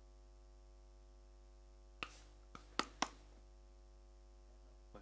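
Steady electrical mains hum from the studio setup, with a cluster of four sharp clicks about two to three seconds in and one faint click near the end.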